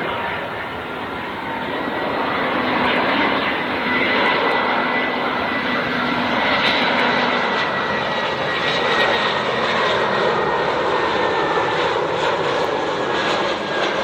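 Engines of an Airbus A320-211 airliner on landing approach, a steady jet noise with a thin whine that drifts slightly lower in pitch as the plane passes by.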